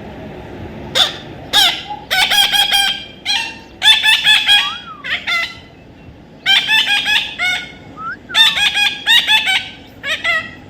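Parrot calling in bursts of rapid, harsh, repeated squawks, starting about a second in and coming again and again with short pauses between.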